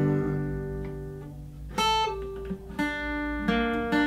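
Acoustic guitar played solo: a chord rings and fades, then new chords are struck about two seconds in and again near three seconds, each left to ring out.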